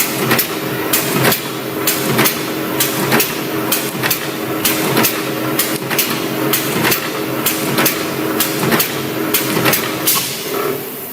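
Automatic spot welding machine for spiral fan guard frames running: sharp clacks two to three times a second, irregularly spaced, over a steady machine hum.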